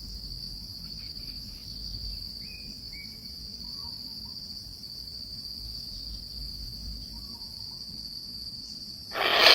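Steady high-pitched insect chorus, crickets or similar, with a faint low rumble beneath it and a few faint short chirps about two to three seconds in.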